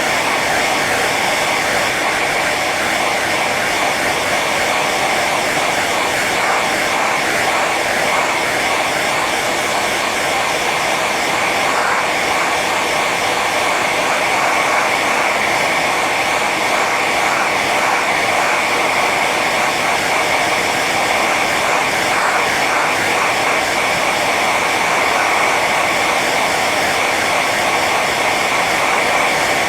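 Hair dryer running steadily on its high setting: a constant blowing whir with a high whine in it.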